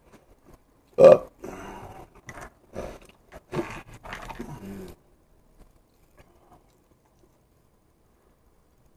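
A man chewing a mouthful of pizza, with muffled vocal noises; a short loud vocal burst about a second in. The sounds stop about five seconds in.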